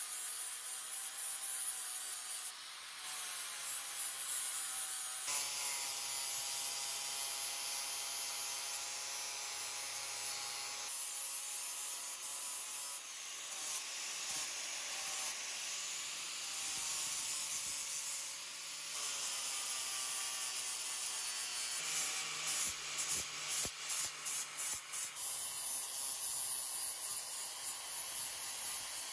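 Handheld angle grinder with an abrasive disc grinding the steel of a railroad-rail anvil: a steady grinding hiss with the motor's whine running through it. For a few seconds about three-quarters of the way through, the sound pulses rapidly on and off.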